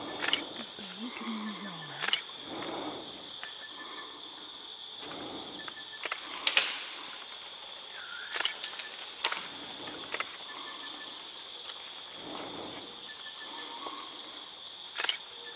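Tropical forest ambience: a steady high-pitched insect drone, with scattered sharp clicks and soft rustles. The loudest click comes about six and a half seconds in.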